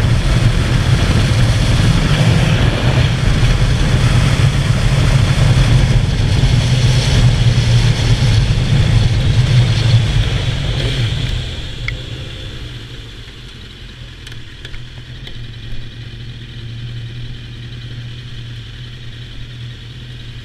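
Sports motorcycle engine running at road speed with wind rush, then easing off about eleven seconds in as the bike slows and settling to a steady idle.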